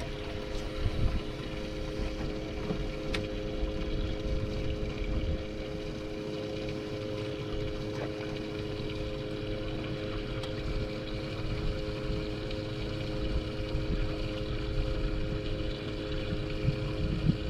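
Fishing boat's motor running steadily with a constant hum, over a low rumble of wind and water.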